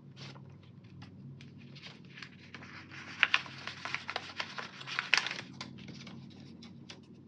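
Paper and sticker sheets rustling and crinkling as stickers are handled and peeled, in small irregular crackles, with two sharper crackles about three and five seconds in.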